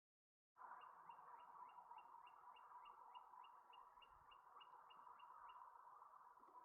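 Bird calling a fast run of short, identical high notes, about three to four a second, that stops after about five seconds. A faint steady hiss lies under it, and the sound cuts in suddenly about half a second in.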